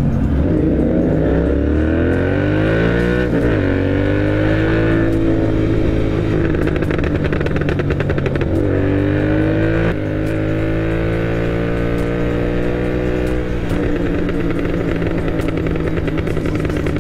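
Royal Enfield GT650's 648 cc parallel-twin, with a Code6 tune and a Moto Torque aftermarket exhaust, accelerating. Its pitch climbs and drops sharply at each upshift, about 3 s and about 9 s in, then holds steady at speed.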